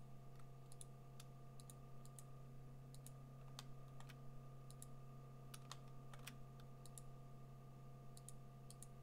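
Faint, irregular clicks from computer input (mouse and keyboard), several in quick pairs, over a steady low hum.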